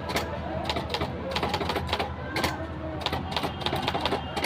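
Manual typewriter being typed on fast: a quick, irregular run of key strikes.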